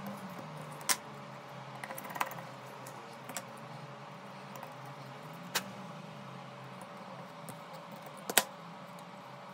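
Sharp clicks and taps of small tools and parts handled on a phone being repaired: about five, spaced a second or more apart, the loudest a quick double click near the end, over a steady low hum.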